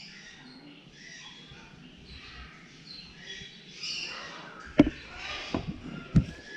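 Caged parrots chirping and squawking in the background, with two sharp knocks about five and six seconds in.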